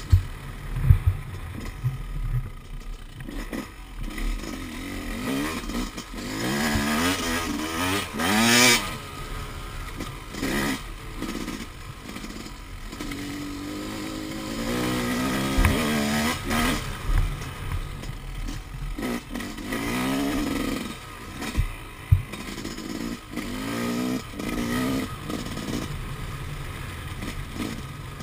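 Yamaha YZ250 two-stroke dirt bike engine revving up and dropping back again and again while being ridden, with a few sharp knocks over rough ground.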